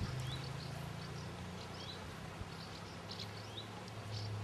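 Small birds chirping in short, high calls again and again, over a low steady hum.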